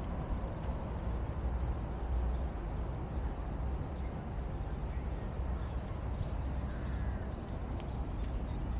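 Steady wind rumble on the microphone outdoors, with a few faint bird calls, crow-like caws, about halfway through.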